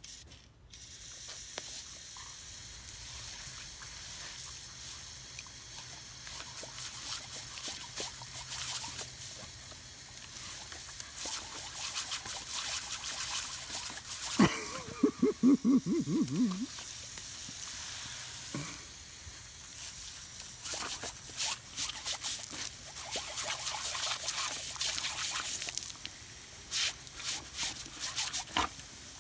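A pressurised jet of water hisses and sprays from a low outdoor tap, splashing as a dog bites and laps at the stream, with more snapping and splashing in the second half. A short wavering cry comes about halfway through.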